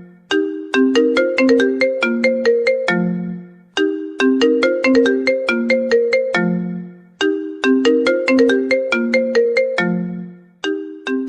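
Mobile phone ringtone melody: a short tune of quick, bright notes, the same phrase repeating about every three and a half seconds.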